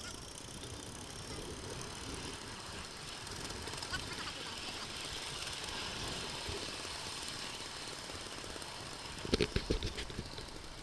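A 5-inch gauge coal-fired Simplex steam locomotive and its passenger wagon running along miniature track, a steady rushing noise, with a quick run of sharp clacks about nine seconds in.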